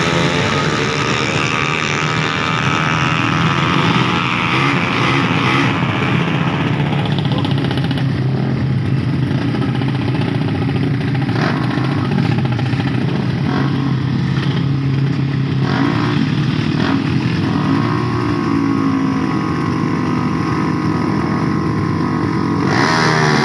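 Small racing motorcycle engines running and revving at a drag strip start line, a steady engine drone with rising and falling revs. A passing bike's noise fades over the first couple of seconds, and the engine noise swells louder again near the end.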